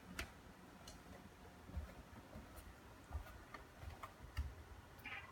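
Faint footsteps of someone walking down carpeted stairs: soft, irregular low thumps with light clicks, roughly one a second.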